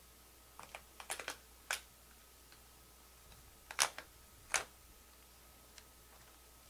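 Scattered computer keyboard clicks: a quick run of light taps about a second in, then two louder clicks around four seconds in, over quiet room tone.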